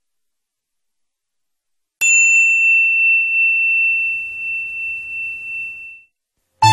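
Silence, then a single bright chime struck about two seconds in that rings one clear tone for about four seconds and fades out, as a production-company logo sound. Loud music starts right at the end.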